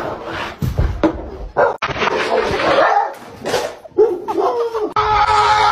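A dog barking and yelping loudly in rough bursts, ending in a longer, held pitched cry near the end.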